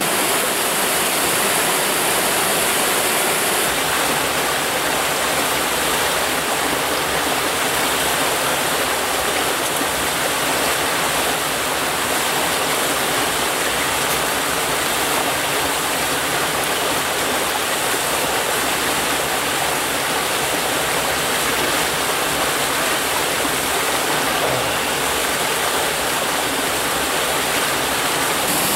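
Mountain stream rushing over boulders in a small cascade: a steady, loud rush of water.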